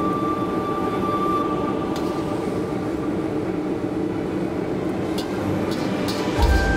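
Steady roar of a commercial kitchen's wok range, with a few light clinks of a metal ladle against a ceramic bowl. A deeper rumble comes in near the end.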